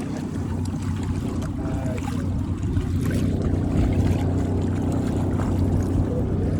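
Boat engine running steadily, a low even hum, with water and wind noise that grows a little louder about three seconds in.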